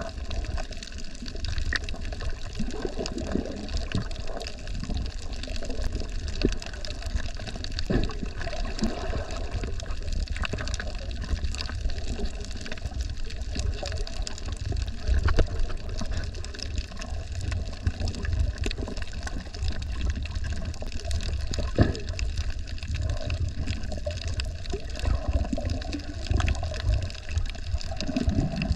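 Water sloshing and rumbling around a camera held underwater while snorkelling, steady and muffled, with scattered faint clicks and a few sharper knocks.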